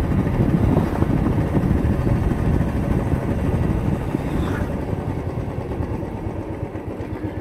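Royal Enfield single-cylinder motorcycle engine running under way, with a rapid low pulsing and wind rush over the microphone. The high hiss fades and the overall level eases off slightly about two-thirds of the way through.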